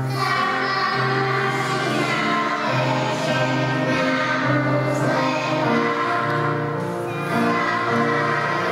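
A group of young children singing a Czech folk song together, over steady low accompanying notes that step from pitch to pitch.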